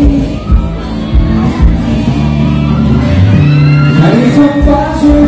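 A male singer singing a Thai pop song live over an amplified band, with a steady drum and bass beat through the stage PA.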